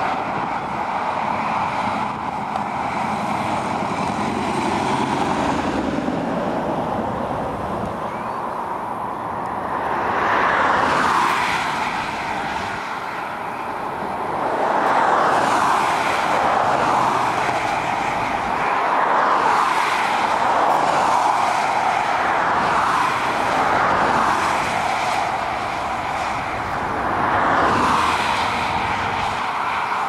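Highway traffic going by close at hand: a steady tyre and engine noise, with vehicles swelling past and fading one after another every few seconds from about ten seconds in.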